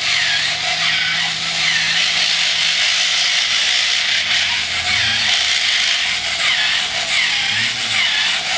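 Small electric gear motor of a radio-controlled six-legged toy robot whirring as the robot walks. It is a loud, high buzzing whine that dips and recovers in pitch again and again as the legs step.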